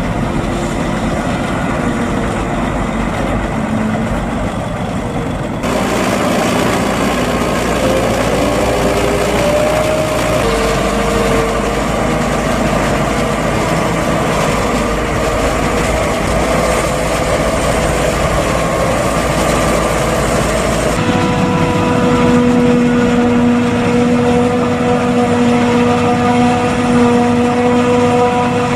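Heavy diesel farm machinery running: a Liebherr 538 wheel loader working the silage clamp, its engine note rising and falling about a third of the way in. About three quarters of the way in the sound changes to a Claas Jaguar 870 forage harvester chopping corn, a steady drone.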